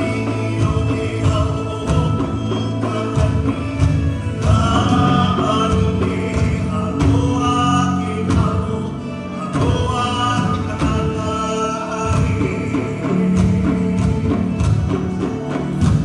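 A song with singing over a steady percussive beat: the music for a hula number.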